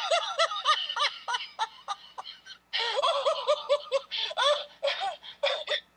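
A person laughing hard in quick, high-pitched giggling pulses, in two bouts with a short catch of breath between them about two and a half seconds in.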